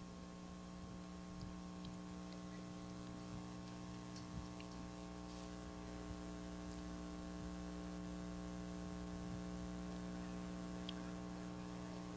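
Faint, steady electrical mains hum, with a few small clicks.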